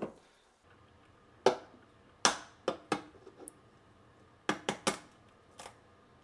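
Shell of a soft-boiled egg being cracked against a stone countertop and picked off: a series of sharp taps and crackles, some single and some in quick clusters of two or three.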